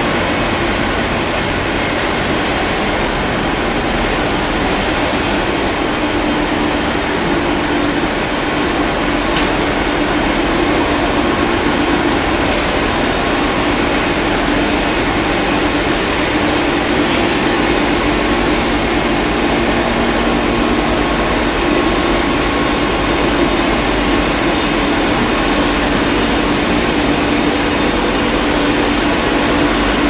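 Optical fibre cable production line machinery running: a loud, steady mechanical noise with a constant hum, and one sharp click about nine seconds in.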